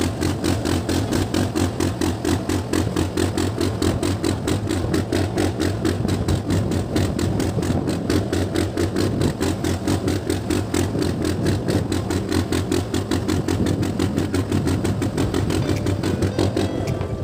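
Ferry boat's engine running steadily under way, a fast, even chugging.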